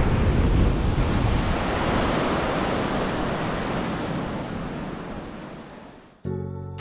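Baltic Sea surf washing onto the shore with wind on the microphone, fading out over the last couple of seconds. Background music starts just before the end.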